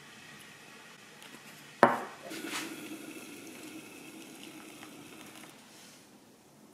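Kitchenware clattering: one sharp knock about two seconds in, the loudest sound, then a few seconds of softer clinks over a low steady hum that stops near the end.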